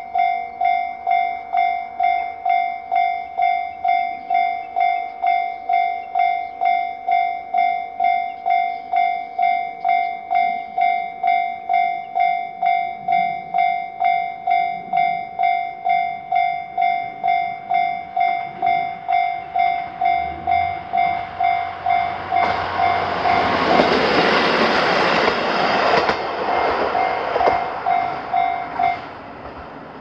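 Japanese level-crossing alarm bell ringing about twice a second. About 22 seconds in, a train crosses in a loud rush of wheel and rail noise lasting about four seconds. The bell stops near the end as the barriers rise.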